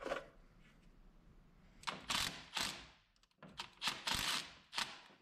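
Cordless power tool run in several short trigger bursts while tightening a nut, starting about two seconds in, with clicks and knocks of metal.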